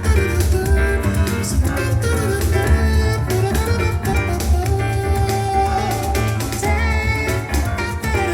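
Music played back through a small studio monitor speaker and picked up by a microphone: a melody over a steady, heavy bass beat with drum hits.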